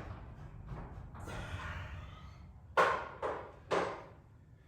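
A person breathing hard, out of breath after winding a garage door torsion spring by hand, with three short sharp exhales in quick succession about three seconds in.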